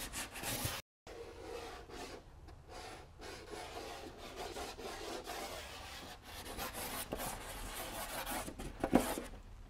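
Black pastel scraping and rubbing across paper in short, uneven strokes, broken by a moment of silence about a second in. A brief louder sound near the end.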